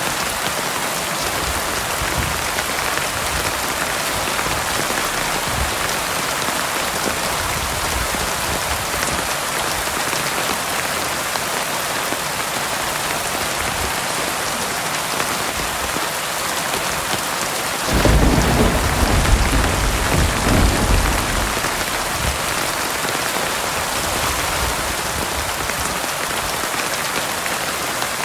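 Heavy rain falling steadily, with a roll of thunder that breaks in suddenly about two-thirds of the way through and rumbles for three to four seconds before fading back into the rain.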